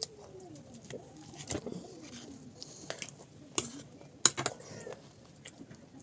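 Pigeons cooing in the background, with a few sharp clicks scattered through, the loudest about four seconds in.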